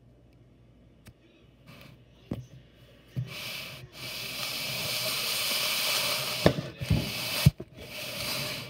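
A steady rubbing hiss starts about three seconds in and runs on with a few brief breaks, with several sharp knocks near the end.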